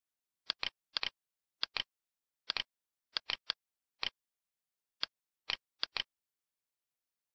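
Computer mouse buttons clicking: about a dozen short, sharp clicks at an irregular pace, mostly in quick pairs of press and release, with dead silence between.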